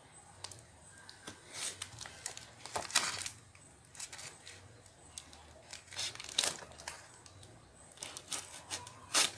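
Blade cutting and slitting the packing tape and wrapping of a tape-wrapped parcel, in short irregular scraping and tearing bursts, the loudest about three seconds in and near the end.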